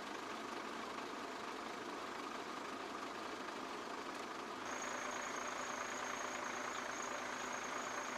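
Vehicle engines running steadily with a constant noise. About two-thirds of the way through, the noise grows louder and a steady high-pitched whine joins it.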